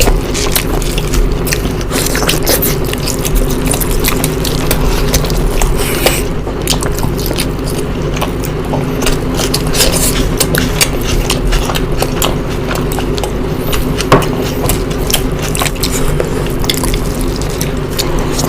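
Close-miked eating sounds of spicy egg curry and rice: wet chewing and mouth-smacking, a dense run of quick, irregular wet clicks.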